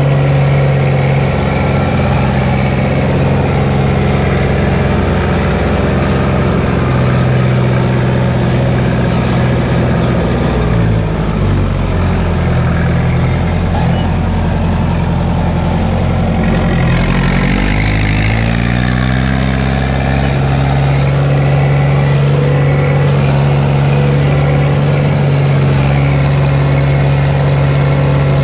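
Fiat 70-66 tractor's four-cylinder diesel engine running steadily, heard from inside the cab. About ten seconds in, the engine speed sags and wavers. Around eighteen seconds in it climbs back up to its steady running speed.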